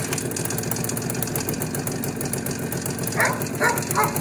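IZh motorcycle's two-stroke engine catching on a kick-start without throttle and running at a fast, even idle, already slightly warmed up. From about three seconds in, a dog barks three times in quick succession.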